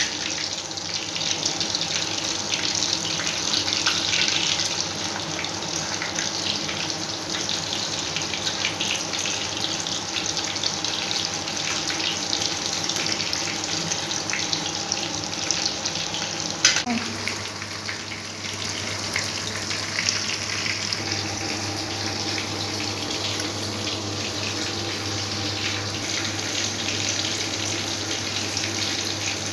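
Chapli kababs sizzling as they shallow-fry in hot oil, a steady crackling hiss, with one sharp knock a little past halfway.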